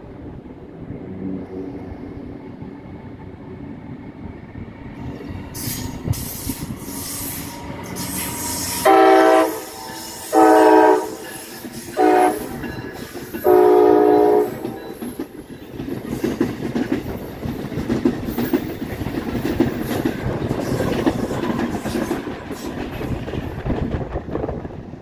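Amtrak ACS-64 electric locomotive sounding its horn four times, long, long, short, long, the standard warning sequence. Its train then rolls past with a steady rumble and wheels clicking over the track joints and switches.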